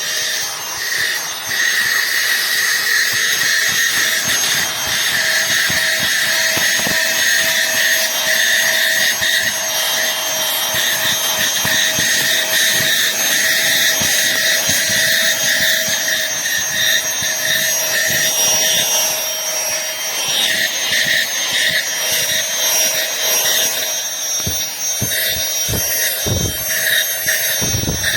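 Aspiron cordless handheld vacuum running steadily: a high-pitched motor whine over rushing air. A few low thumps come near the end.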